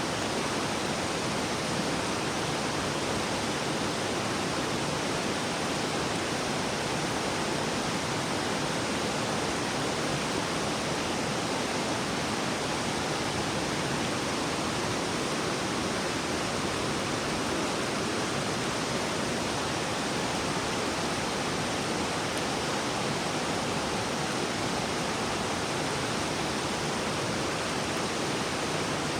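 River water rushing over rocks: a steady, even flow with no change in level.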